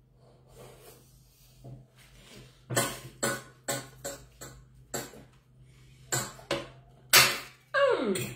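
Eating sounds close to the microphone as French fries are eaten by hand: irregular sharp clicks and smacks, about two a second, starting roughly a third of the way in. Near the end a short voice slides down in pitch.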